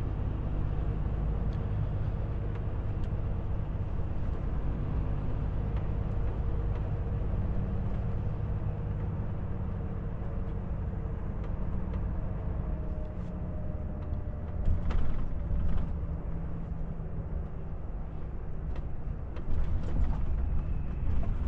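Cab interior of a Volvo FH truck on the move: steady diesel engine and road rumble with a faint whine, and a few short knocks about fifteen seconds in.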